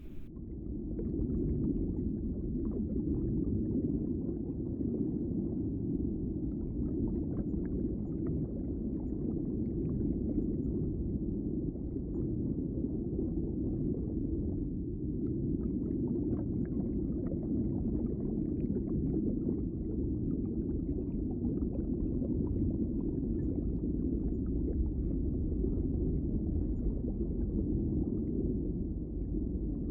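Muffled underwater sound picked up by a GoPro inside its waterproof housing: a steady low wash of water with faint, scattered ticks.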